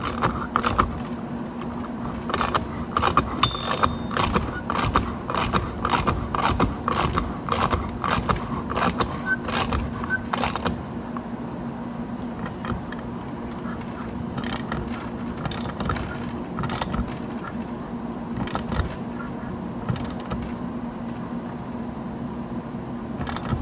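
Metal clicks and clinks from a hand tool tightening a clutch spring compressor down on a scooter's clutch pulley and contra spring. The clicks come thick and fast for about the first ten seconds, then turn sparse. A steady low hum runs underneath.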